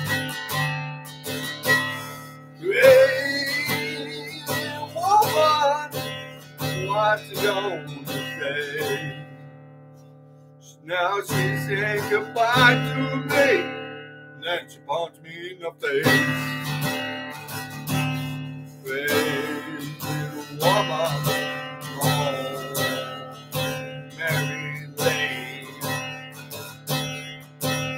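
Acoustic guitar strummed with a man singing over it. The playing dies away about ten seconds in and starts again a second later.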